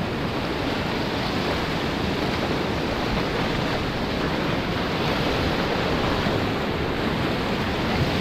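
Whitewater rapids rushing and churning around a canoe, a steady, unbroken wash of water noise.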